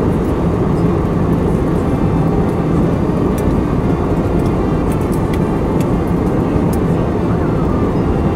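Cabin noise of a passenger jet in flight, heard from a window seat: the steady, even rumble of the engines and rushing air, with a low hum.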